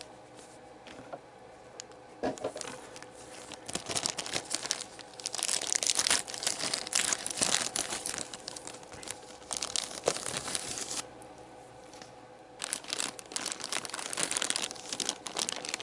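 Plastic packaging of model kit parts crinkling and tearing as it is handled and opened, in two long stretches with a short lull between them.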